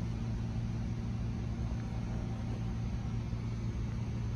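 A steady low mechanical hum with no breaks.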